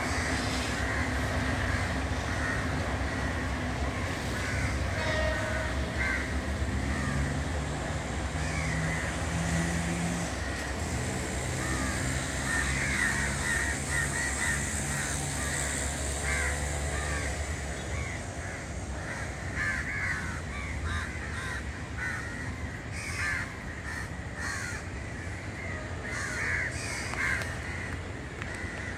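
Crows cawing again and again, over the low steady rumble of a distant diesel train, which fades about two-thirds of the way through.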